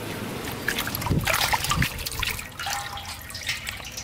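Water splashing, dripping and trickling as whole raw plucked chickens are handled in a basin of water and lifted out. The splashing is busiest from about a second in and thins out near the end.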